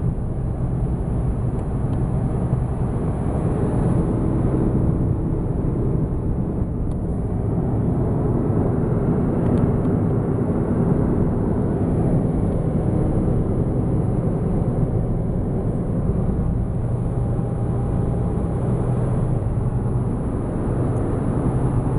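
Steady engine and tyre noise of a Toyota car driving along at road speed, heard from inside the cabin.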